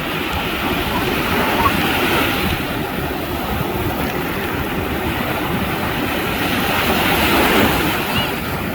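Heavy storm surf: a loud, steady roar of breaking waves that swells to a peak about seven seconds in.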